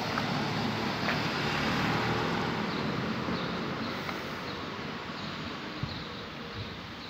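A motor vehicle passing, its noise peaking about two seconds in and then fading away. A faint high chirp repeats a little under twice a second through the second half.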